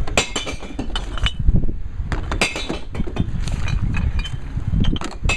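Glass bottles dropped one after another into a glass-recycling bank, clinking and clanking against each other and the container inside, many times over.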